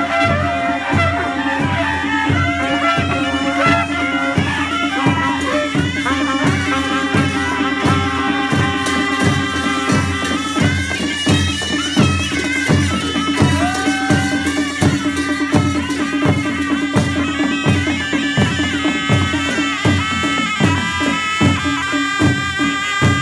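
Nepali panche baja ensemble playing: shehnai reed pipes carry a wavering melody over a steady drum beat of about two strokes a second.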